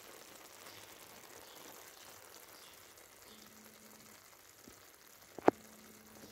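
Faint sizzling and crackling from a hot clay tagine of rice and vegetables, with one sharp knock about five and a half seconds in.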